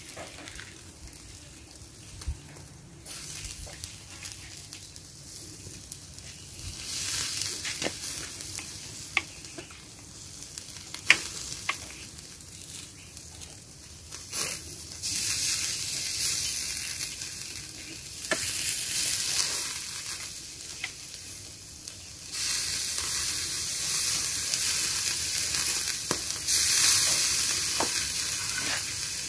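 Satế-basted fish sizzling on a wire grill over a charcoal stove, with scattered sharp crackles and pops. The sizzle grows louder in steps about halfway through and again later.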